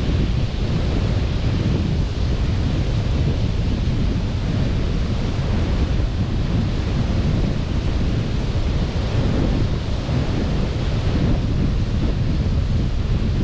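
Sea surf washing onto a beach: a steady rush of waves, with wind buffeting the microphone and adding a low rumble.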